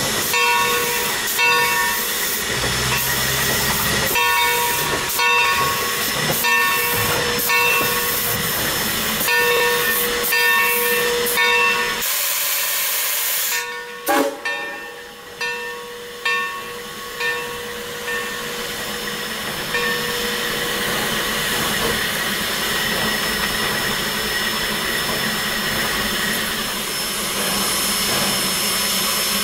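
Steam locomotive Texas State Railroad #30, a 1917 Baldwin 2-8-2, moving slowly with steam hissing and its bell ringing in regular strokes for about the first twelve seconds. After that only a steady hiss of steam goes on, with a single sharp knock about fourteen seconds in.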